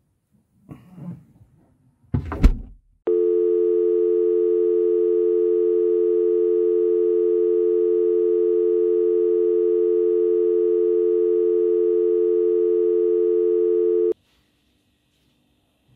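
A short rustle and a heavy thud, then a loud, unbroken telephone tone held for about eleven seconds that cuts off abruptly.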